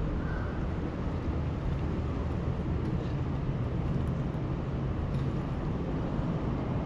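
Steady low outdoor rumble of city and river background with a faint engine-like hum. A short repeating high beep ends within the first half second.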